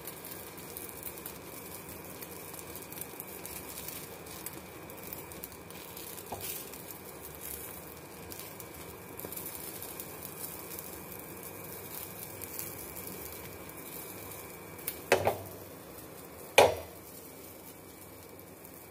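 Egg omelette sizzling steadily in oil in a nonstick frying pan. Near the end, two sharp knocks of cookware, about a second and a half apart.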